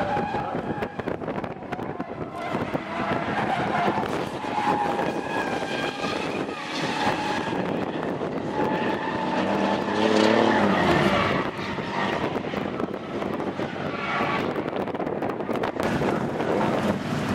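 Engines of two drift cars revving up and falling back again and again as they slide sideways through the corners, with tyres squealing.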